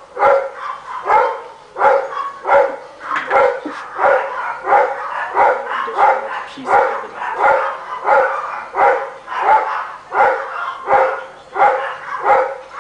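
A Rottweiler barking over and over, about one bark every two-thirds of a second with no pause.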